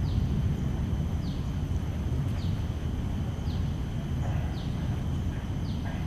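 Steady low outdoor rumble with a short, high, falling chirp repeating about once a second.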